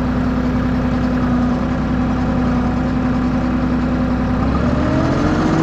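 Bandit stump grinder's engine running steadily as the machine is driven, rising in pitch about four and a half seconds in as it revs up a little.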